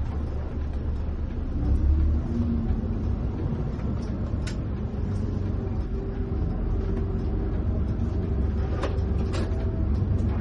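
Inside a coach's cabin on the move: steady low engine and road rumble, with a faint whining tone that rises then holds. A sharp tick sounds about halfway through and two more near the end.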